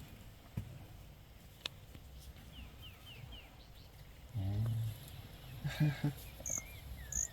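African elephant giving a low rumble about four seconds in, followed by a couple of shorter low calls a second later. Small birds chirp in short high notes.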